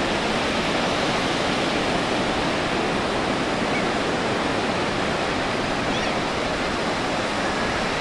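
Steady rush of ocean surf breaking on a sandy beach.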